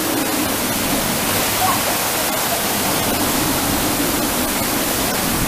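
Steady rush of water streaming down a funnel water slide.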